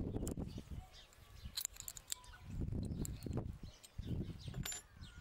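Faint bird chirps over three bursts of low rumble, with a few light sharp clicks scattered through.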